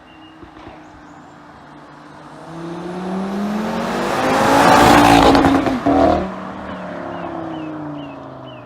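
2016 Audi RS3's turbocharged five-cylinder engine through its stock exhaust with the exhaust valves open, accelerating past: the engine note climbs in pitch and loudness to a peak about five seconds in, then drops in pitch and fades as the car goes away. Birds chirp faintly in the background.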